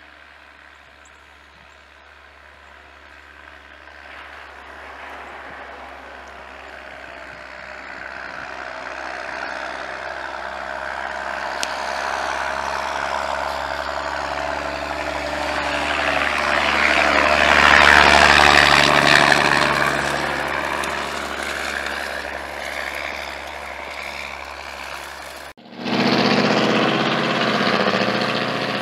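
Dump plow and salt truck driving past on a snowy street: its engine and tyres grow steadily louder as it approaches, are loudest as it passes, then fade. After a sudden cut near the end, a pickup truck fitted with a snowplow is heard running close by.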